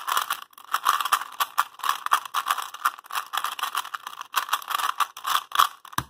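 A Rubik's 2.0 3x3 cube turned rapidly by hand: its plastic layers click and scrape in a dense, fast rattle that stops just before the end. The turning is really loud and crunchy and not smooth, even with the cube lubed with Maru Lube.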